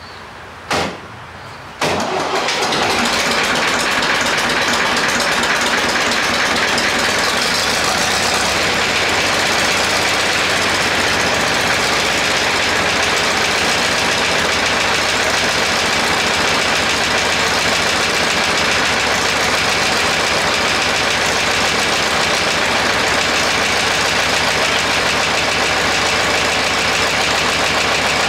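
SAME Centauro 60 tractor's diesel engine starting after a short first burst, catching about two seconds in and then running steadily.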